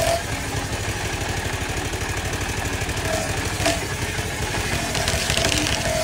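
Engine powering a sawmill's circular saw, running steadily with a low, even pulse, and a few brief faint higher tones over it.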